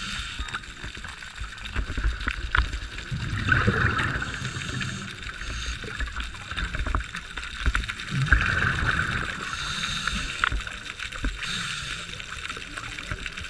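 Scuba breathing heard through an underwater camera: a bubbling rumble on each exhale, at about 3.5 s and again at about 8.5 s, and a hiss from the regulator on the inhales between them.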